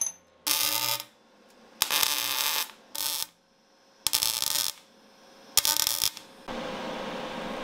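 MIG welder arc striking in five short bursts, each a loud crackling hiss of under a second with short quiet gaps between: stitch welds joining a square steel tube to a steel ammo-can lid. A steady hum takes over near the end.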